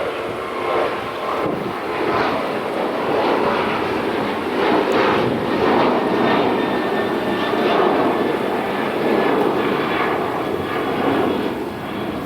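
Airliner taking off, its engines giving a loud, steady rushing noise that swells slightly partway through and eases near the end.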